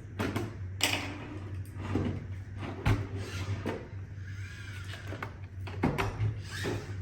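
Plastic clicks, knocks and rattles as the dustbin of an iRobot Roomba 692 is worked out of the robot's body, over a steady low hum.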